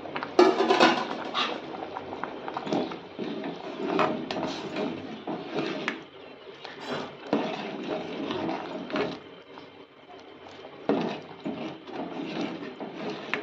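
A ladle stirring thick simmering masoor dal in a metal pot, clinking and scraping against the pot's sides in irregular strokes, with the wet sloshing of the dal.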